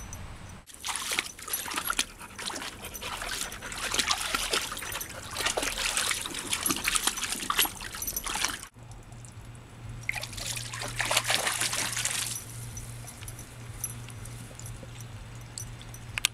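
Water spattering and splashing in a long, dense run that stops abruptly about nine seconds in. A steady low hum follows, with a second, shorter burst of splashing about ten seconds in.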